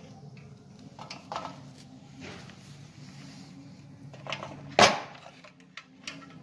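Handling noises from wiring indicator lamps on a steel panel plate: wire rustling and light knocks against the metal, with one sharp loud click nearly five seconds in, over a steady low hum.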